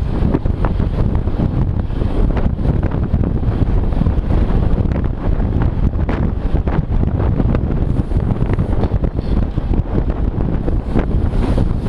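Steady, loud wind buffeting the microphone of a camera moving at speed, a dense low rumble with irregular small crackles.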